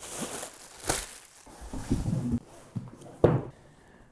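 Cardboard shipping box being unpacked by hand: cardboard flaps scraping and plastic packing crinkling, with a couple of knocks as the boxed item is lifted out and set down.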